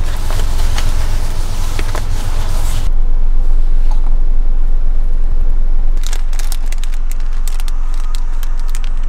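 Plastic snack wrapper being torn open and crinkled, a rapid run of sharp crackles from about six seconds in, over the steady low rumble of the idling van heard from inside the cabin. A broad hiss fills the first three seconds.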